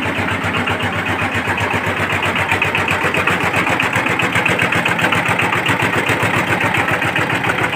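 Power tiller's diesel engine running steadily after a fresh rebuild, with an even, rapid firing beat.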